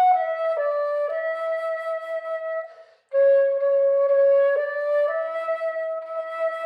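Solo flute playing a slow melody of held notes, stepping between pitches, with a short breath break about three seconds in.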